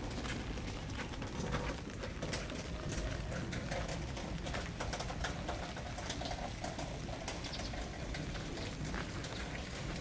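Light drizzle falling, with many scattered raindrops ticking close by over a steady low rumble.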